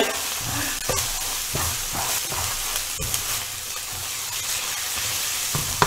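Onions frying and sizzling in hot oil as they brown, stirred in the pan with a utensil that clicks and scrapes against it now and then.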